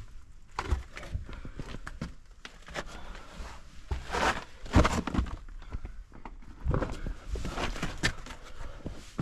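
A hiker's footsteps, irregular scuffing steps with the loudest one a little before halfway.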